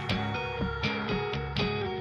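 Background music: plucked guitar notes starting about three times a second.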